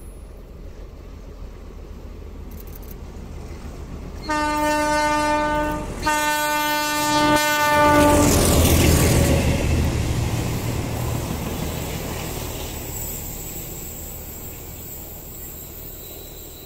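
Alco diesel locomotive sounding its horn in two long blasts, one right after the other, as it approaches. Its engine is loudest as it passes close by, and the coaches rumble on behind it, fading away.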